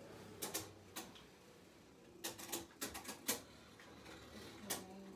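Spinning Beyblade tops clacking against each other: irregular sharp clicks, with a quick cluster about two to three seconds in and another near the end.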